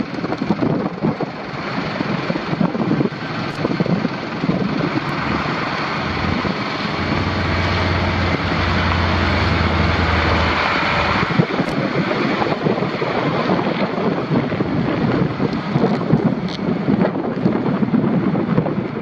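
Wind buffeting the microphone, a loud rushing noise that rises and falls, with a steady low hum underneath from about six to eleven seconds in.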